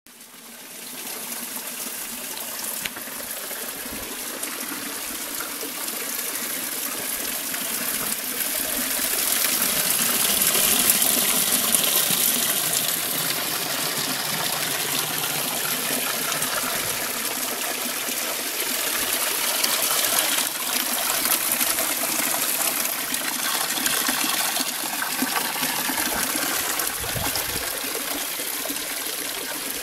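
Spring water running from a stone village fountain's spout and splashing into its trough, a steady gurgling that swells for a few seconds partway through.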